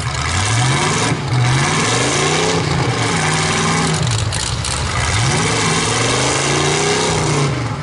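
Demolition-derby truck engines revving hard, the pitch climbing and dropping back over and over, about once a second.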